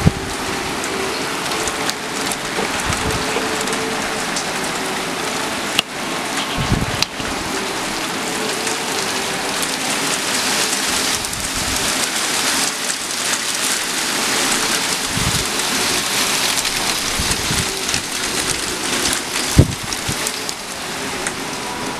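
Heavy rain with small hail falling on a car's roof and the stone paving around it: a steady hiss studded with many sharp ticks, and a few low thumps.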